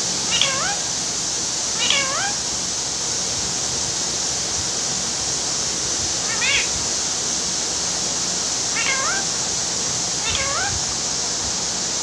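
Rose-ringed parakeet giving five short calls, each rising in pitch, irregularly spaced, over a steady hiss.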